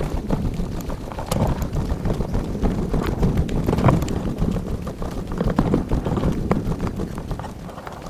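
Footsteps of a person walking over dry grass and tilled dirt, a steady run of crunching steps, with some wind buffeting the microphone.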